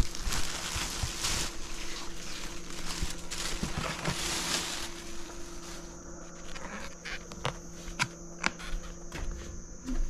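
Rustling handling noise for the first few seconds, then a steady high insect drone with a few sharp clicks, over a faint steady low hum.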